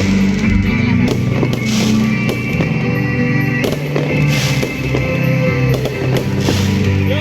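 Music with a steady beat, with fireworks going off over it: scattered bangs and four short bursts of crackling hiss.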